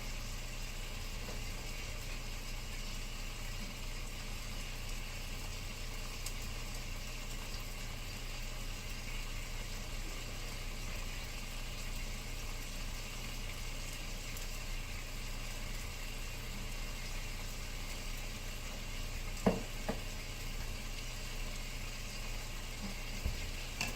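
Steak and onions sizzling steadily in a frying pan on a stove burner that has just been turned up. A brief double clack, like a utensil against the pan, comes about twenty seconds in.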